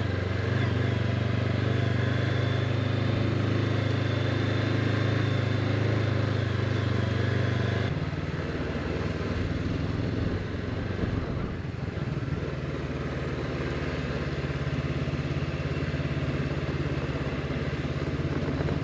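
Honda CB500X's parallel-twin engine running steadily on the move. About eight seconds in its note shifts and drops a little, runs rougher for a few seconds, then settles again.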